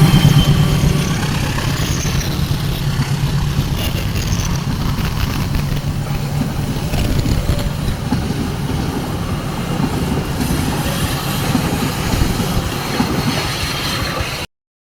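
A train passing close by. A heavy low engine sound at first gives way about a second in to the rumble and clatter of the cars rolling over the rails. The sound cuts off abruptly near the end.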